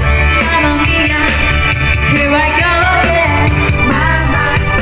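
Background music: a song with a singing voice over a full band.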